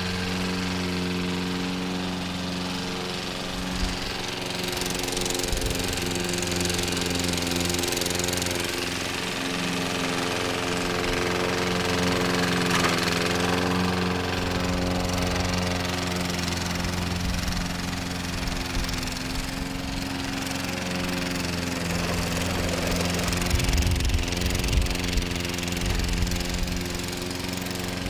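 Petrol walk-behind rotary lawn mower engine running steadily, dipping briefly in pitch about halfway through, with a few louder low knocks near the end.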